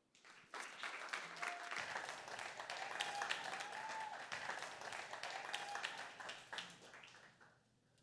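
A small audience applauding, many hands clapping; it starts about half a second in and dies away near the end.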